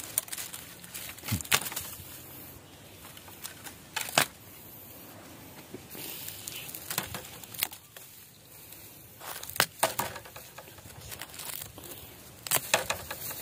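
Dry, fire-charred bamboo stems and dead bamboo leaves crackling and rustling as a gloved hand pushes into the clump, with several sharp snaps of dry cane along the way.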